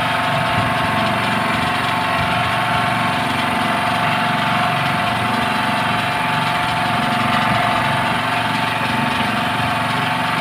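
Small portable generator engine running steadily, a constant drone with a steady hum.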